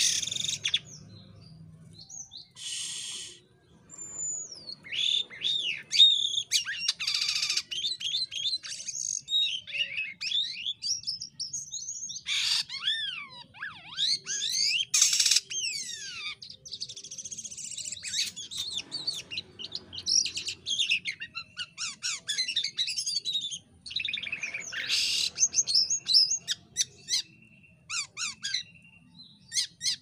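Caged jalak kapas (white-shouldered starling) singing a long, varied song of sliding whistles, falling glides and harsh rasping bursts, broken by short pauses.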